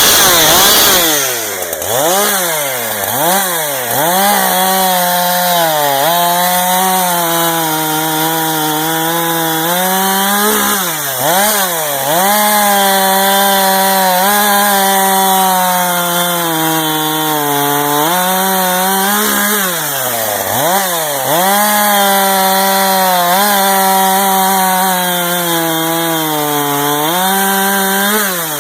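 Brand-new Husqvarna 372XP X-Torque two-stroke chainsaw running at high revs while cutting wood. Its engine pitch holds steady for stretches, then dips and climbs back several times. These are its first cuts.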